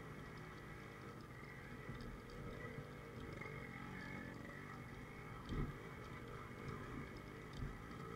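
Yamaha RX100's two-stroke single-cylinder engine running at low speed on a rocky dirt track. Thuds come from the bike hitting bumps, the loudest about five and a half seconds in and another near the end.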